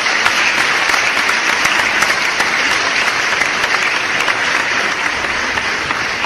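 Crowd applauding: a dense, steady run of many hand claps that eases off slightly near the end.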